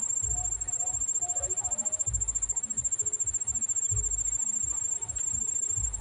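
A cricket-like insect trilling steadily: a continuous high-pitched pulsing buzz. Dull low thumps come in about every two seconds.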